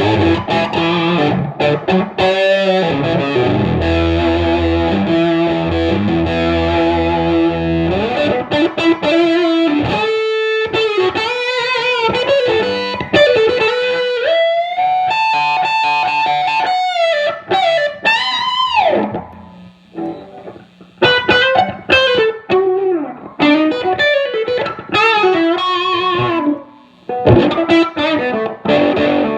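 Electric guitar through a Fuzz Face / Tone Bender MK1.5 hybrid fuzz pedal, a Gibson Les Paul's humbucker into a 1969 Fender Bassman amp, with the blend set toward the Fuzz Face side: a little more Fuzz Face flavored, but not as woolly and bass heavy. Fuzzed chords ring for the first several seconds, then come single-note lead lines with string bends and vibrato, broken by short pauses.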